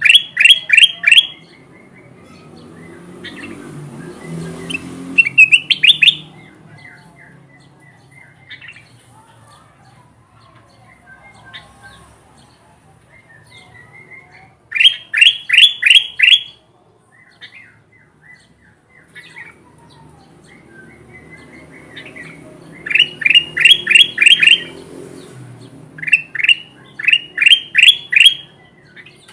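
Kutilang emas, a bulbul, singing: loud phrases of four to six quick, evenly repeated notes, five phrases spread out with gaps of a few seconds. Between phrases there are fainter softer calls and a faint low rumble.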